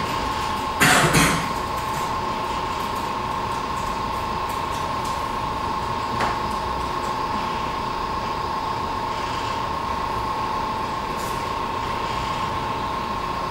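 A steady machine hum with a constant high whine, and a brief noisy knock about a second in.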